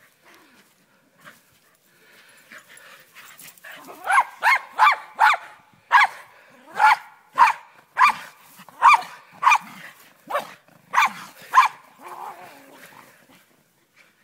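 Pyrenean Shepherd dog barking: a quick run of about fourteen sharp, short, high barks starting about four seconds in and stopping near the end.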